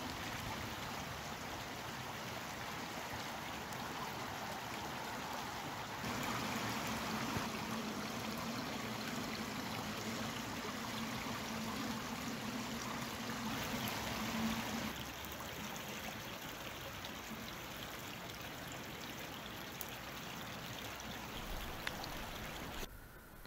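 Rain falling on a lake surface, then water running out of a brick culvert pipe into the lake: a steady rush of water that grows a little fuller about six seconds in and eases back near fifteen seconds.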